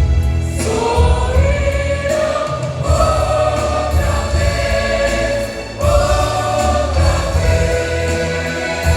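A gospel vocal group singing in harmony, the voices entering about half a second in and holding long, gliding notes over a heavy bass accompaniment.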